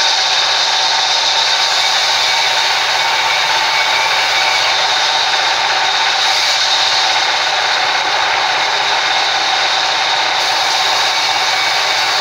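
Horizontal band sawmill running, its blade sawing lengthwise through a wooden board with a loud, steady noise that does not let up.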